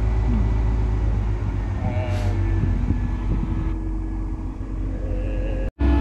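Truck-mounted mobile crane's diesel engine running with a steady low rumble. Near the end it cuts out briefly and music begins.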